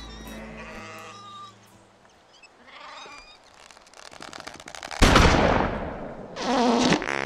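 Soft music fades out, and after a quiet stretch a cartoon shotgun blast goes off suddenly about five seconds in, loud and ringing away. A second loud sound with a wavering pitch follows near the end.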